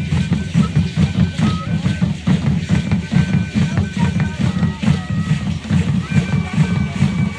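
Aztec ceremonial drumming: a large drum beating a fast, steady pulse with rattling over it, and short high held tones from whistles or flutes coming and going.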